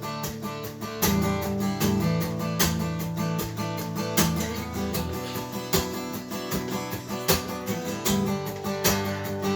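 Acoustic guitar strummed in a quick, steady rhythm over held bass notes, an instrumental passage of a pop song with no singing.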